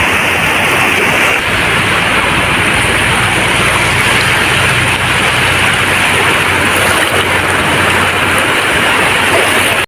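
Sea waves washing steadily on a beach, with a low steady hum underneath from about a second in.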